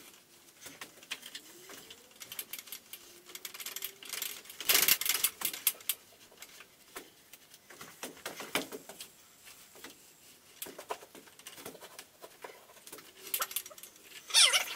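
Someone moving about and handling things in a workshop: footsteps, shuffles and scattered light knocks and clicks, with a louder scraping clatter about five seconds in and another near the end.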